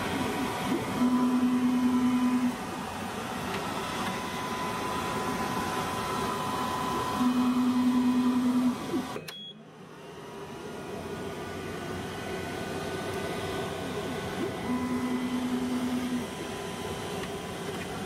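xTool M1 laser head travelling along its gantry on its stepper motors: a steady low whine lasting about a second and a half, three times. Underneath is a constant hum from the running machine and its air assist. The sound drops out briefly about halfway through.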